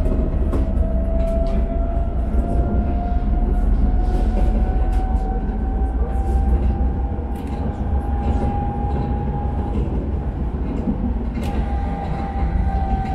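Tram running on its line, heard from on board: a steady low rumble with a motor whine that rises slowly in pitch as it gathers speed, levels off, and starts to drop near the end, with scattered clicks of wheels over rail joints.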